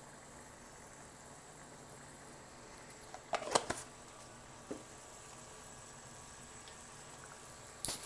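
Faint steady hiss with a short clatter of knocks and clicks about three and a half seconds in, and a single smaller click about a second later: kitchen handling noise around the pan.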